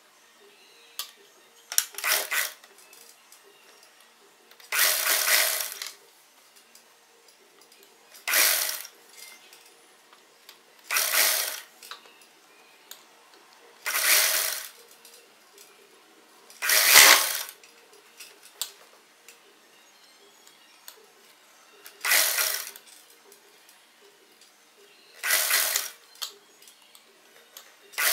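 Sewing machine stitching in short runs, each about half a second to a second long and roughly every three seconds, eight runs in all, with short stops between them as the fabric is turned and guided.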